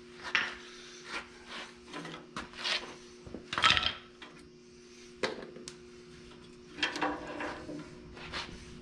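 Tools and parts being handled on a tractor's sheet-metal platform: scattered scrapes and knocks, the loudest a little past halfway.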